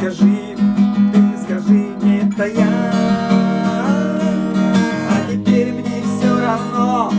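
Acoustic guitar strummed in a steady rhythm as a chanson song's accompaniment, with a melody line gliding over it from about halfway through.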